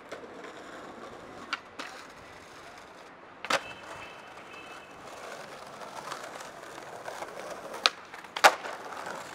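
Skateboard wheels rolling over stone paving, with sharp clacks of the board striking the ground a few times: a loud one about three and a half seconds in and the loudest near the end.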